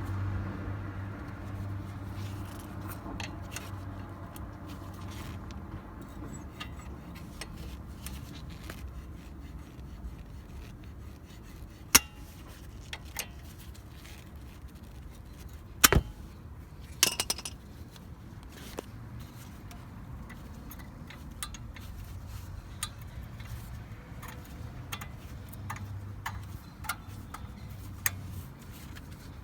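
Small metal clinks and taps of hand tools on a Brembo brake caliper while its pad retaining pins are worked out, with three sharper metal strikes about twelve, sixteen and seventeen seconds in.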